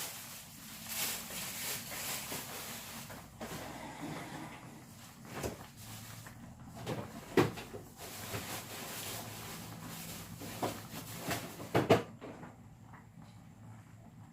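Kitchen work sounds: a steady hiss that stops abruptly near the end, with several sharp knocks of cookware or cupboard doors, the loudest two near the middle and just before the hiss stops.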